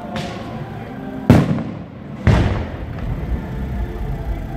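Aerial firework shells bursting: a lighter bang at the start, then two loud booms about a second apart, each trailing off in an echo.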